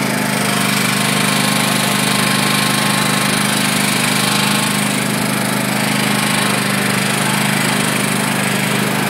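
Riding lawn mower's small engine running steadily as the mower drives along, a constant loud hum.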